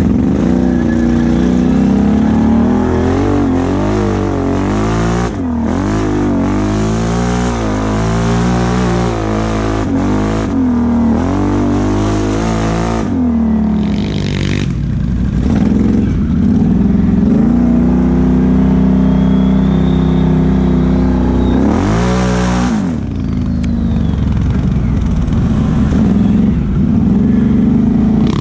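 2017 Can-Am Outlander XMR 1000 ATV's V-twin engine with a Big Gun aftermarket exhaust, heard close up from the quad itself, revving up and down over and over as it is ridden. About halfway through the throttle eases off, then the engine holds a steady pitch, with one short dip and rise near the end.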